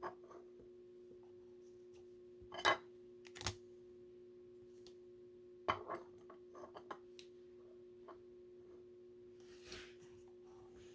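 Trading cards and pack wrappers being handled: a few brief rustles and taps over a steady electrical-sounding hum.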